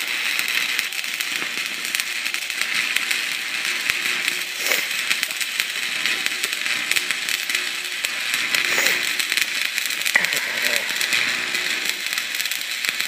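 Stick-welding arc crackling and sizzling steadily as a 6013 electrode at 60 amps lays a weld bead along a snowmobile ski's wear bar.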